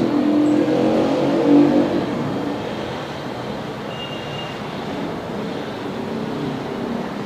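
Road traffic noise: a motor vehicle's engine over a steady roar, loudest about a second and a half in.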